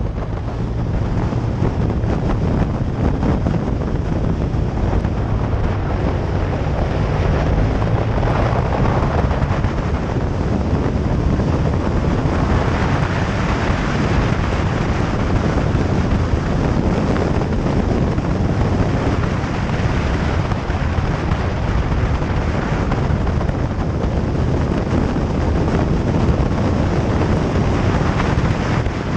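Wind rushing hard over the microphone of a moving motorcycle, with the engine's low, steady drone underneath.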